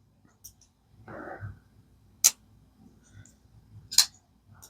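Crossbar-lock folding knife with a Nitro-V blade being flicked open and shut: two sharp clicks about a second and a half apart as the blade snaps into place against the crossbar detent and stop pin, the action freshly lubricated.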